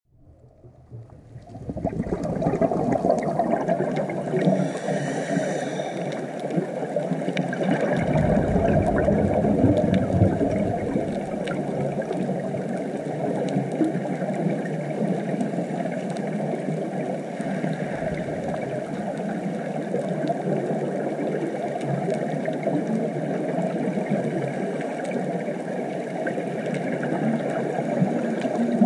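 Underwater reef ambience heard through a GoPro's waterproof housing: a steady muffled rush of water with scattered faint clicks. It fades in over the first couple of seconds, and a deeper surge swells about eight seconds in.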